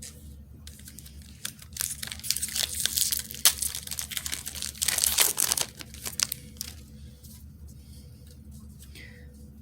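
Foil wrapper of a Magic: The Gathering booster pack crinkling and tearing as it is opened. A dense run of crackles starts about a second and a half in and eases to faint rustling after about six seconds.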